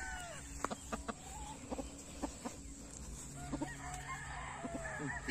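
Gamefowl roosters crowing and clucking: one crow trails off with a falling pitch in the first half second, followed by scattered short calls and clicks.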